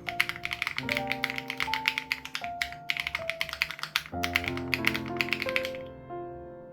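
Fast typing on an SPM AL87B mechanical keyboard with BSUN Raw switches and its dampening foam removed, a quick run of key clicks that stops about six seconds in. Soft piano music plays under it throughout.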